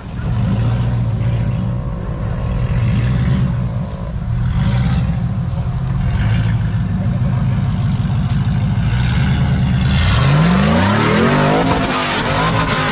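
Modified 80 series Toyota Land Cruiser's engine working under load while crawling over rocks. Near the end the revs rise sharply and fall again as the driver gives it a burst of heavy throttle.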